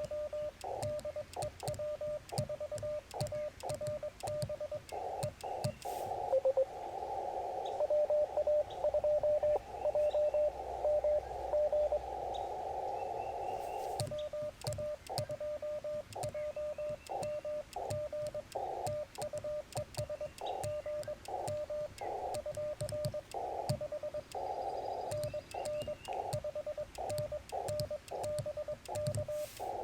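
Morse code (CW) from a Yaesu FT-891 transceiver: a single steady tone rapidly keyed on and off in dots and dashes, with faint clicks. From about 6 to 14 seconds, and again right at the end, the keyed tone is heard inside a band of receiver hiss, the other station's signal coming in. The rest is the operator's own sending heard as sidetone.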